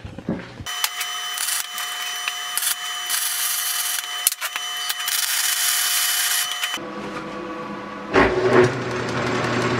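Angle grinder cutting steel tube, a steady grinding whine from just under a second in until about seven seconds. It then gives way to a metal lathe running with a lower, steady hum.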